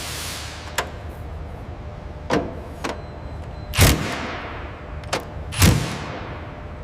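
A series of sharp knocks and bangs over a steady low rumble, the two loudest about four and six seconds in, each trailing off in an echo.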